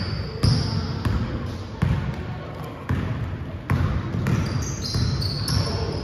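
Basketball being dribbled and bounced on a court, with sharp bounces at an uneven pace of roughly one a second, and short high squeaks of sneakers on the floor in between.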